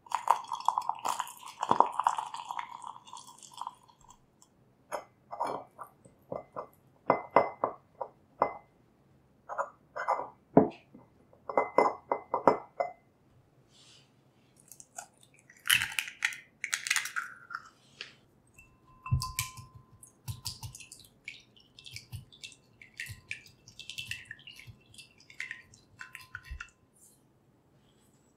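Hot water spooned into freshly microwaved caramel in a ceramic mug, sizzling and spitting for a few seconds. Then a spoon stirs the caramel, scraping around the mug in a series of short strokes, with light clinks against the ceramic near the end.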